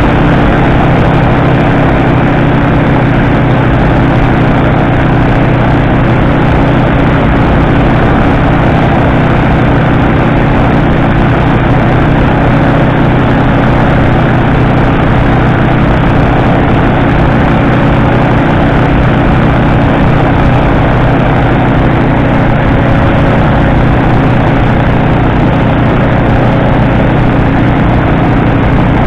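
Fanagoria ultralight trike's engine and pusher propeller running steadily in flight: a loud, even drone with no change in pitch.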